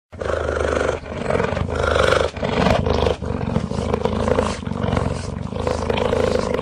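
Cheetah vocalising: a rough, rapidly pulsing big-cat sound in several stretches of about a second each with short dips between, starting abruptly.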